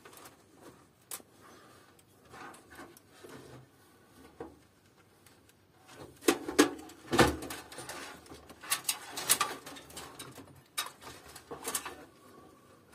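Clicks, knocks and rattles of a motherboard and its cables being handled and lifted inside a steel PC case. Sparse at first, busier and louder in the second half.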